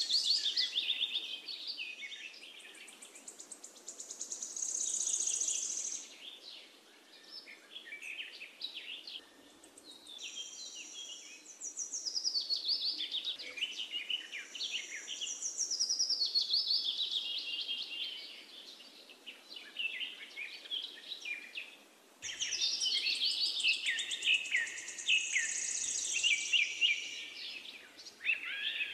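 Small songbirds chirping and singing in a busy chorus of rapid trills and high whistles, rising and falling in waves of a few seconds with short lulls between.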